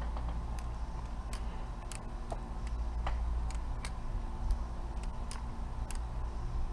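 Balisong (butterfly knife) being flipped: its handles and blade swing around the pivots and clack against each other in irregular quick clicks, a few a second, over a steady low rumble.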